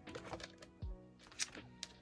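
Soft lo-fi hip-hop background music with a slow, low drum beat, and a few light clicks of photocards being handled.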